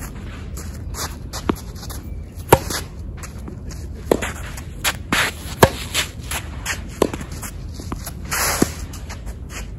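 Tennis rally: about six sharp knocks of racket strikes and ball bounces, roughly one every second and a half, with shoes scuffing and sliding on the sandy artificial-grass court in between.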